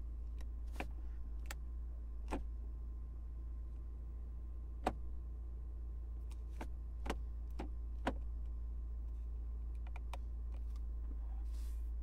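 Electronic gear selector of a 2021 Toyota GR Supra being nudged through its positions by hand: about seven sharp clicks at uneven intervals over a low steady hum.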